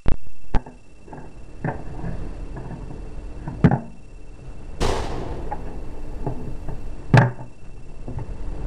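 Handling noise of plastic toy figures and the camera: a few separate knocks and thumps as the toys are moved on the floor, with one sharper noisy burst about five seconds in that quickly fades.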